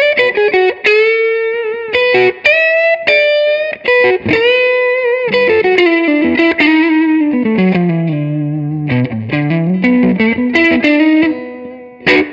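Electric guitar through a Fender Blues Deluxe Reissue tube amp with a Free The Tone SOV-2 overdrive, playing a single-note blues lead with string bends and vibrato. A slow run sinks into the low strings and climbs back. A last picked note near the end rings out and fades.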